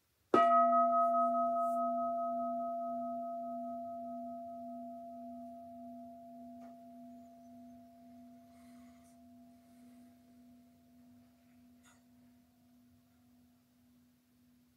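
A meditation bell struck once, ringing with a long slow fade and a gentle wobble in its low tone. It is the invited bell of mindfulness practice, a call to stop and breathe.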